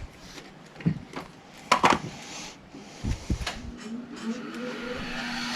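Scattered knocks and clicks of metal tools and parts being handled, with a faint whine rising in pitch in the last couple of seconds.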